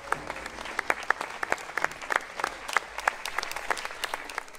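Audience applauding, a patter of separately audible hand claps that cuts off suddenly at the end.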